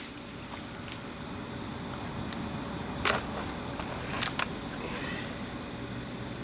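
Sharp mechanical clicks from a break-barrel spring air rifle being handled between shots: one about three seconds in, then a quick pair about a second later, over a steady background hiss.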